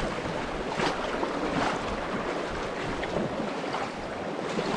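Steady rush of water in a shallow mountain stream, with some wind on the microphone.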